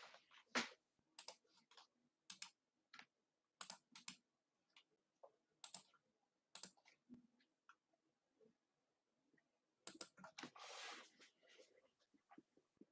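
Near silence broken by faint, irregular clicks and taps, with a short rustle about ten seconds in.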